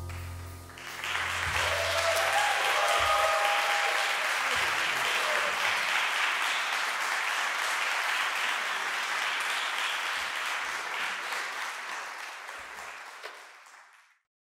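The jazz trio's final piano and bass chord dies away, then an audience applauds steadily, the clapping fading out near the end.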